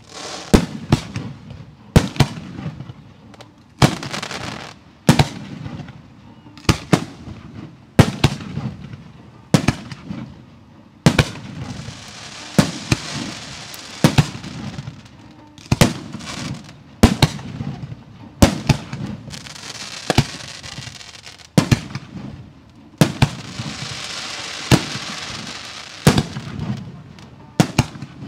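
Professional 1.3G display fireworks going off in rapid succession, with loud sharp bangs about once a second. Two spells of steady high crackling hiss come through, one in the middle and one near the end.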